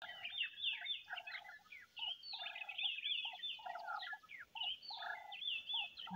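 Several birds calling at once: a low, harsh note repeats every half second or so, with higher notes swooping downward above it.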